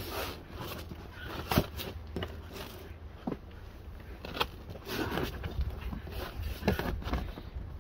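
Scuffing and rustling of a quilted PVC faux-leather floor mat being slid into a car's footwell and pressed down by hand, with scattered light taps and knocks.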